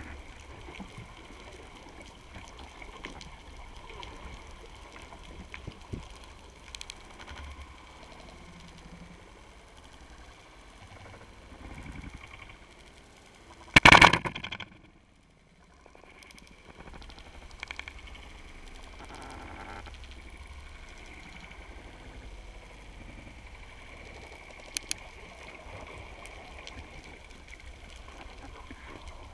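Speargun firing underwater once, about halfway through: a single sharp, loud crack that rings briefly. Around it, the steady hiss and gurgle of water heard underwater.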